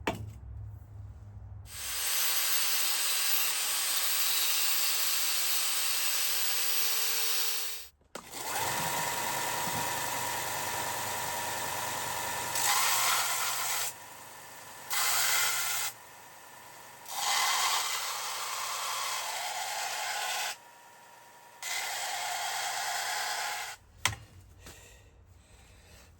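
Electric grinder grinding steel with a steady hissing whine. It stops briefly about a third of the way in, then comes and goes in passes as the steel is pressed on and lifted off. It cuts off near the end.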